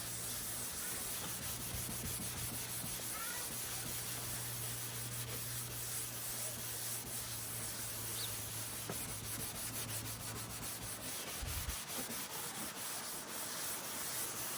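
Scotch-Brite scouring pad scrubbing a wet plastic headlight lens by hand, a steady rasping rub that strips off the dirt and yellowed oxidation.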